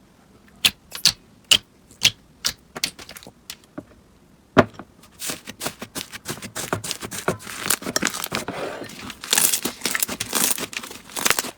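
Slime being handled: first a series of sharp pops and clicks a fraction of a second apart, then a louder snap, then a steady dense crackling that cuts off abruptly.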